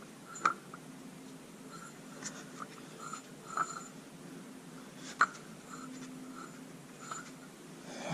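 Scattered light clicks and knocks of supercharger parts being handled during disassembly, with two sharper knocks about half a second in and about five seconds in.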